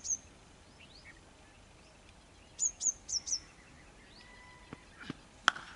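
Birds calling outdoors: short, high, downward-sliding chirps in pairs and groups of four. Near the end comes a single sharp crack, a cricket bat striking the ball.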